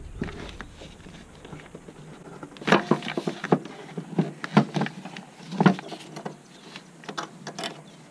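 A run of irregular clicks and knocks, as tools and parts are handled during engine work, the loudest about three seconds in and again near six seconds.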